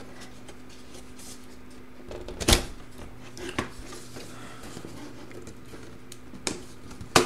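Plastic snaps and clicks as the palm rest of a Dell Latitude D420 laptop is pried off its base and its clips let go. There is one sharp snap about two and a half seconds in, a few lighter clicks after it, and another sharp one near the end.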